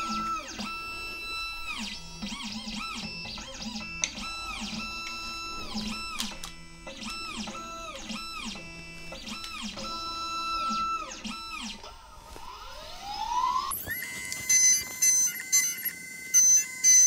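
Condor Dolphin CNC key-cutting machine at work. Its motors whine in steady tones that keep starting, stopping and changing pitch as the carriage moves, and a rising whine follows as the cutter spins up. Near the end come loud sharp bursts as the cutter mills the key blank.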